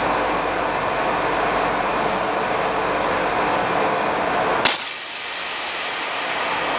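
Steady rushing background noise, then a single sharp rifle shot about two-thirds of the way in, after which the background dips and builds back. The shot is fired at a row of small metal silhouette targets and knocks one down.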